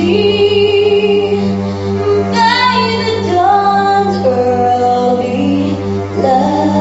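A woman singing into a microphone, holding long notes and sliding between them, with a high upward swoop about two and a half seconds in, over a steady low hum.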